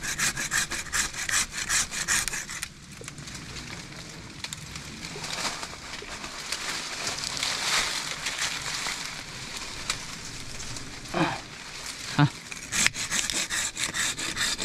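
Hand saw cutting through a thin tree trunk in quick back-and-forth strokes. The sawing stops for several seconds in the middle, then starts again near the end.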